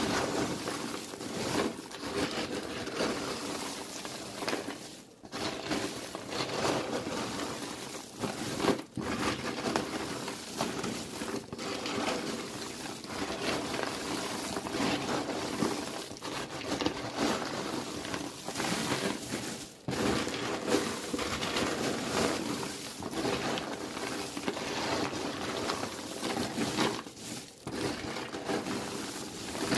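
Popcorn being tossed and stirred by gloved hands in a plastic tub: a continuous dry rustling and crunching, with a few brief pauses.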